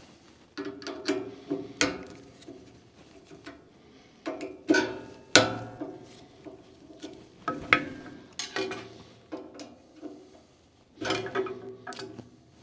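Irregular metallic clinks, clicks and clatter of a folding hex key set and small steel guide blocks being handled against a bandsaw's upper blade guides and cast-iron table, as the guide-block set screws are loosened to swap the blocks. Each knock rings briefly.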